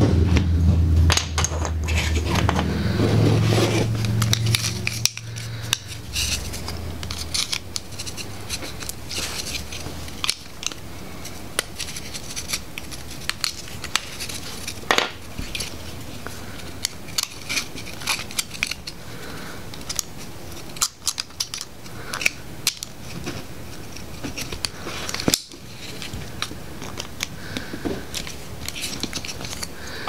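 Small plastic clicks, snaps and scrapes as the covers are worked off GM PCM wiring-harness connectors by hand. A low steady hum underneath cuts off suddenly about five seconds in.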